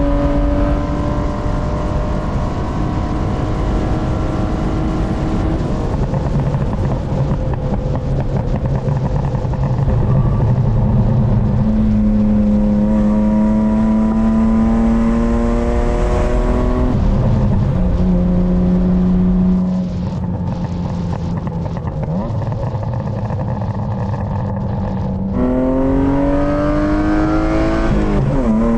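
BMW E36's M52B25 2.5-litre inline-six accelerating through the gears, the pitch climbing and then dropping at each shift. About twenty seconds in the throttle is lifted and the flame-tuned exhaust pops and crackles on the overrun for a few seconds, before the engine pulls hard again near the end.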